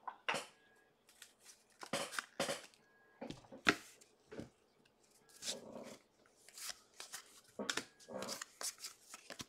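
Trading cards being handled by hand: scattered short rustles and soft slaps of card stock.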